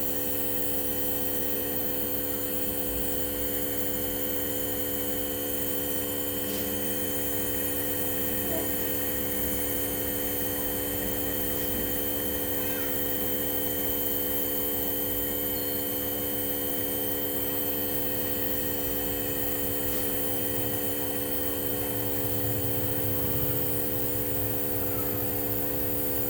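A home nebulizer running with a steady hum, giving off the mist for a child's cough and cold treatment.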